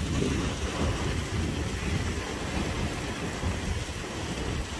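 Steady hiss of heavy rain and running water, with a low, gusty rumble of wind buffeting the microphone.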